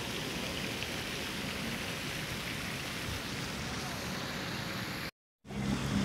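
Steady rushing background noise with no distinct events. Near the end it drops out completely for a moment, then returns with a low steady hum.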